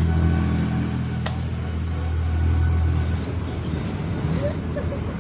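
An engine running with a steady low hum, which stops about three seconds in.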